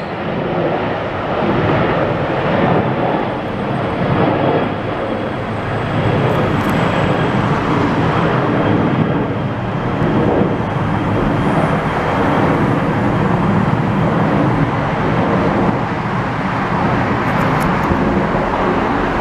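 Airliner's jet engines running, a steady loud rush with a faint high whine over the middle part.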